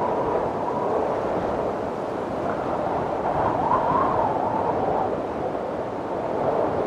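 Steady wind blowing, with a faint howling tone that wavers up and down in pitch as it gusts, rising about halfway through.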